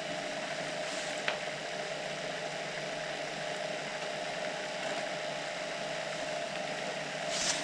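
Model SD40-2 locomotive's motor and newly fitted trucks running steadily on the bench, a quiet whir with a held hum, turning freely without binding. A small click about a second in.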